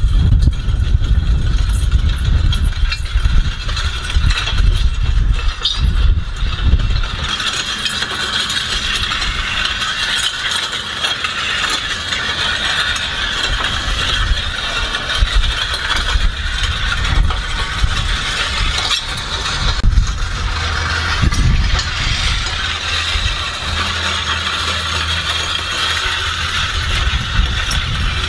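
Weighted metal sled dragged over asphalt, a continuous grinding scrape.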